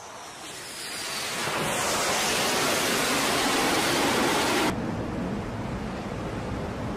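Jet aircraft engine roar on a carrier flight deck, building over about two seconds to a loud, steady roar that cuts off abruptly near the end, leaving a quieter steady rush of wind and sea.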